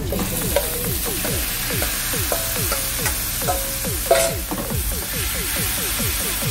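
Diced raw chicken breast tipped into hot oil in a frying pan, sizzling as it hits the oil, then stirred with a wooden spoon. A sharp knock sounds about four seconds in.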